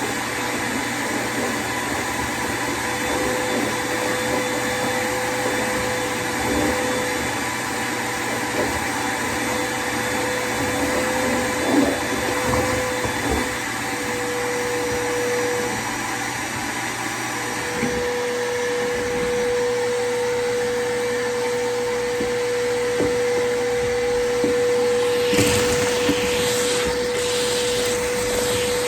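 Shop vac running with a steady motor whine while picking up dust and debris, with a few scattered knocks and a stretch of rattling and scraping near the end.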